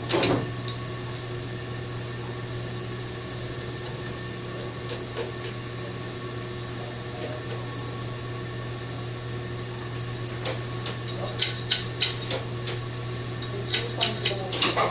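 Heidelberg offset printing press running with a steady low hum. A run of sharp clicks and knocks comes near the end.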